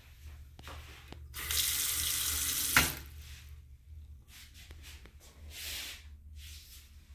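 Water running from a faucet into a small bathroom sink for about a second and a half, shut off with a sharp click, followed by fainter short splashes and handling sounds.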